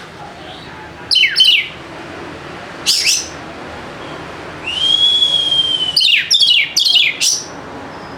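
Oriental magpie-robin (kacer) singing: loud, sharp, downward-sliding whistled notes, a pair, then a single one, then a long, nearly level whistle, then a quick run of four falling notes near the end.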